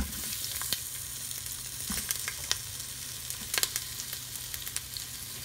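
Sliced onion dropping into hot avocado oil in an Instant Pot's stainless steel inner pot on the sauté setting: a thump as it lands, then steady sizzling with scattered crackles.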